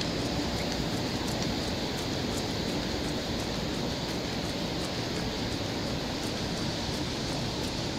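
Steady rushing noise of city traffic heard on the move, with light regular taps about three times a second from a runner's footfalls.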